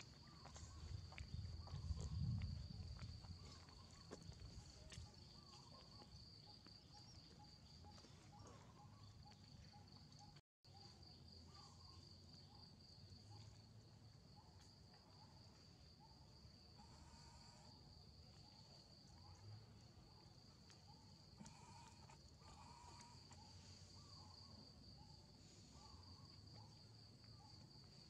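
Faint, steady, high-pitched insect trill, cricket-like and pulsing evenly, with faint short chirps lower down repeating about once a second. A low rumble sits under it in the first few seconds.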